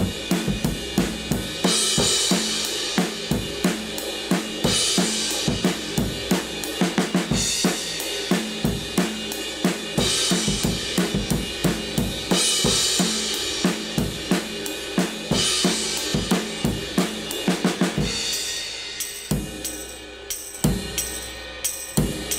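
Recorded drum kit playing back through compressor and saturation plugins: kick, snare and hi-hat in a steady groove with a crash cymbal about every two and a half seconds. About 18 seconds in the cymbal crashes stop and the hits turn thinner and sparser.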